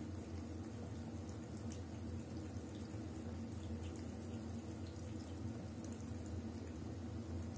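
Thin stream of water running steadily from a bathtub spout into the tub, with small scattered drip ticks.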